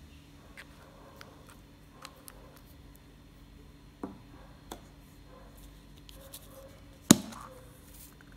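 Light clicks and taps of small plastic items being handled. About seven seconds in comes one loud sharp snap, a hollow plastic toy egg popping open.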